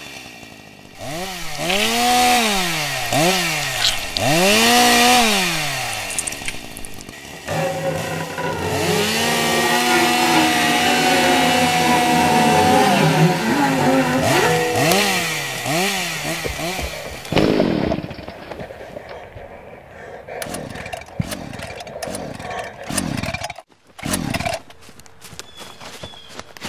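Chainsaw engine revving up and down over and over, held at high revs for a few seconds about halfway through. Near the end it drops away into quieter falling sweeps and scattered sharp clicks.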